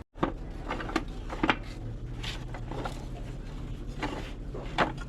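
About five sharp knocks and clatters spread over a few seconds, over a steady low hum.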